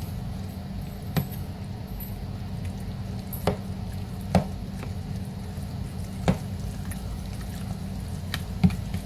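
Chili mac being stirred in a Tupperware microwave pressure cooker pot, with about six sharp knocks of the stirring utensil against the pot over a steady low hum.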